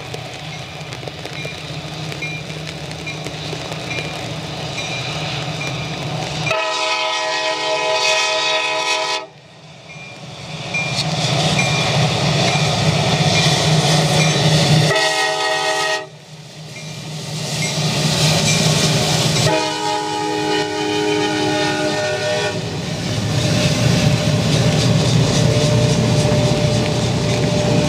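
Freight train diesel locomotives running with a deep steady rumble, sounding the horn: a long blast, then a short one and another long one later on.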